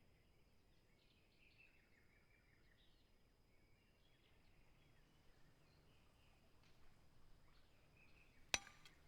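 Faint outdoor ambience with soft, scattered bird chirps, and a single sharp click near the end.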